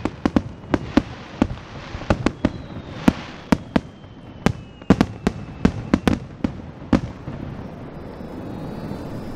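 Aerial fireworks going off: a rapid, irregular string of sharp cracks and bangs that stops about seven seconds in, leaving a steady low background noise.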